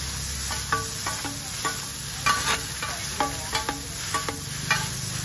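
Metal spatulas clinking and scraping against a wide flat metal pan as rice noodles for pad thai are tossed and stir-fried, about a dozen irregular clinks over a steady sizzle.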